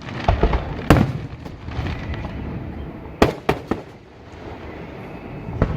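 Fireworks going off: a string of sharp bangs with rumble and crackle between them, the loudest about a second in and a quick cluster of three around three seconds in.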